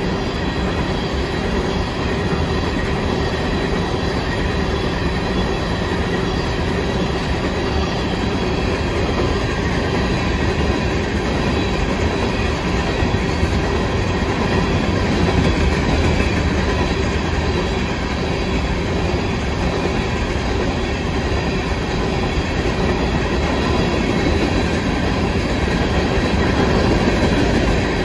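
Norfolk Southern rock train's loaded aggregate cars rolling steadily past: a continuous rumble and rattle of steel wheels on the rails, with some clickety-clack over the joints.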